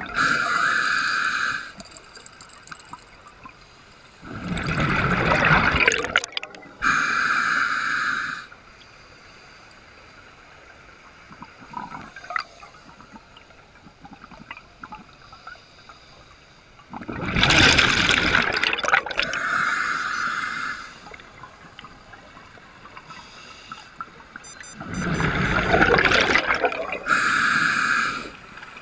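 Scuba diver breathing through a regulator underwater: a hiss of inhaled air at the start, then three breaths about ten seconds apart, each a loud burst of exhaled bubbles followed by the regulator hissing on the inhale.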